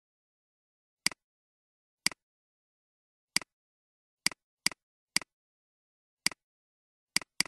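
Computer mouse button clicking: nine single clicks at irregular spacing, roughly a second apart, each a sharp click followed at once by a softer one.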